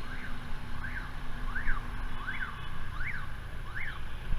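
An electronic beeper chirps over and over, each chirp sweeping up and back down in pitch, about once every three-quarters of a second. Underneath it is the low, steady rumble of motorbike engines and traffic.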